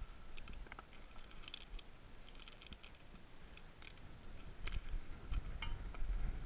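Gravel track ballast crunching and clicking in scattered small sounds, with wind rumbling on the microphone, stronger in the second half.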